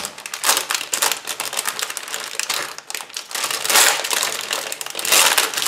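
Clear plastic bag crinkling as it is handled in the hands, a close, dense crackle with louder bursts about half a second in, just before four seconds and past five seconds.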